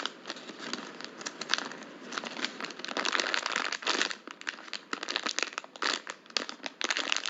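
Plastic crinkling and crackling in irregular bursts as a white Cinnamoroll squishy toy is handled.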